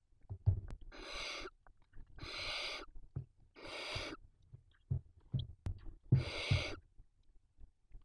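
Barn owl nestlings giving four rasping hisses of about half a second each, the hissing 'snoring' calls that barn owl chicks use to beg for food. Soft thumps and rustles of the owlets shifting in the nest cavity come between the calls.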